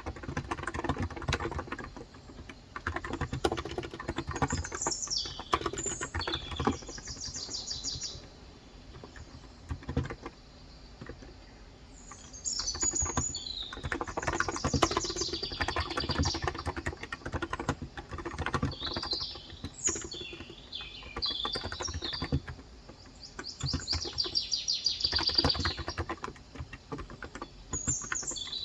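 Typing on a Cox Endeavour electro-capacitive tenkeyless keyboard with 35 g switches, quick keystrokes in bursts with a short lull about a third of the way in. Birds chirp and trill outside in several bouts over the typing.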